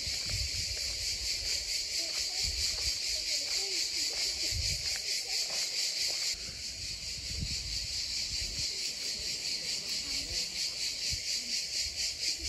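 Cicadas chirring in a steady, high-pitched, fast-pulsing drone, dipping slightly in level about six seconds in.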